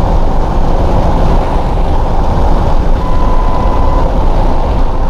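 Inside the cab of a truck driving along a dirt road: steady low rumble of the engine and tyres. About three seconds in, a steady beep sounds for about a second.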